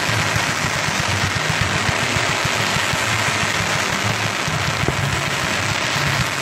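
Ground firework fountain spraying sparks: a steady rushing hiss that holds at an even level.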